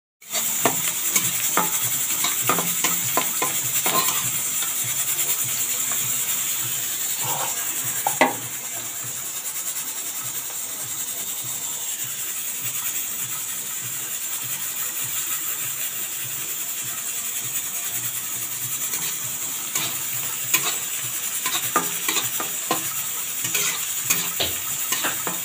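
Sliced onions sizzling in hot oil in a kadhai, a steady frying hiss. A spatula scrapes and clacks against the pan in quick strokes during the first few seconds and again near the end, with one louder knock about eight seconds in.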